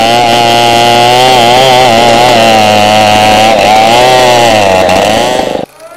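Large 070-type two-stroke chainsaw running at high speed while cutting a felled coconut palm trunk, its engine note wavering up and down with the load. The sound cuts off suddenly near the end.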